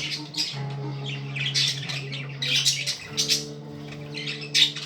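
Pet budgies chattering and squawking in short, repeated bursts, over a steady low hum that changes pitch twice.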